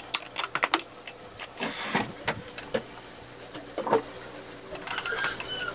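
Irregular plastic clicks and knocks as the ink tank cover is fitted and snapped onto an Epson L3110 printer, with one sharper knock about four seconds in.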